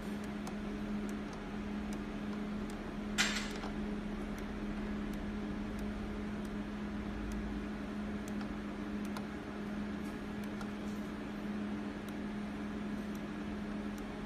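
Faint clicks now and then as the rotary selector dial of a Lenoxx AF1200 air fryer oven is turned through its settings, over a steady low hum. One short, louder burst of noise comes about three seconds in.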